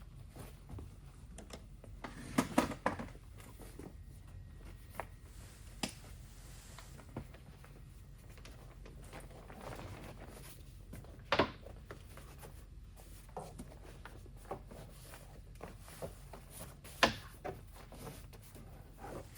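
Handling noises from fitting a padded, magnetic window cover: a few sharp clicks and knocks, loudest about two and a half seconds in, near eleven seconds, and near seventeen seconds, with soft rustling of the cover's fabric between them.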